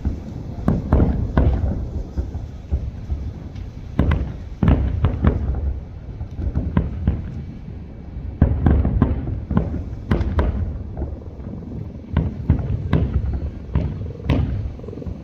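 Aerial fireworks going off in quick succession: many sharp bangs at irregular intervals, some in rapid clusters, each followed by a low rumbling echo.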